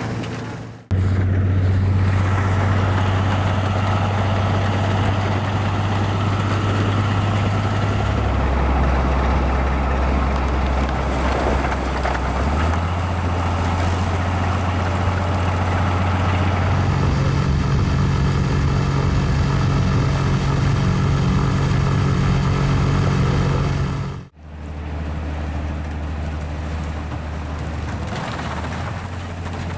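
Railway rotary snowplows running as they blast through deep snow: a steady low machine drone under the hiss of snow being thrown, which shifts in pitch several times.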